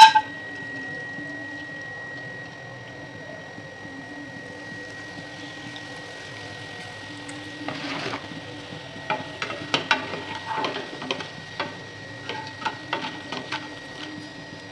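Hot oil sizzling steadily in a wok as pieces deep-fry, swelling briefly about eight seconds in. From about nine seconds on, a wire mesh strainer and wooden spatula tap and clink repeatedly against the pan as the food is scooped out.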